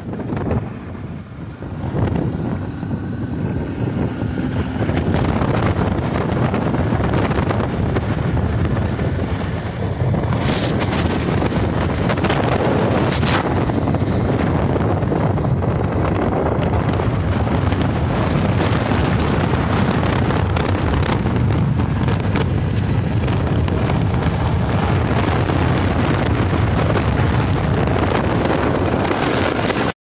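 Wind buffeting the microphone on a motorcycle riding at speed, a steady rush over a low rumble from the bike and road, a little quieter in the first two seconds.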